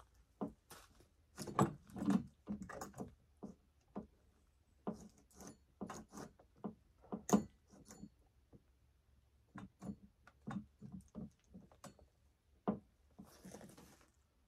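Irregular clicks, clinks and knocks of a Holzfforma G255 chainsaw being worked on by hand, its clutch cover off and the bar and chain handled, with a short scraping rustle near the end. The chain is binding and won't freewheel, which the owner puts down to the wrong chain.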